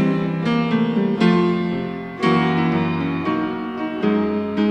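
Piano playing a short instrumental interlude between sung lines of a slow ballad, with new chords struck roughly once a second.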